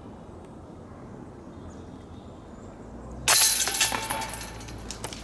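A flying disc striking the metal chains of a disc golf basket: a sudden loud metallic jingle about three seconds in that rattles and dies away over about a second and a half.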